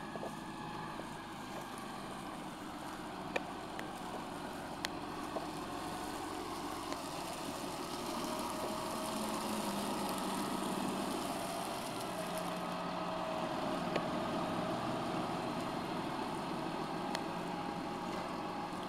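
Fendt tractor's diesel engine running steadily, growing a little louder about halfway through.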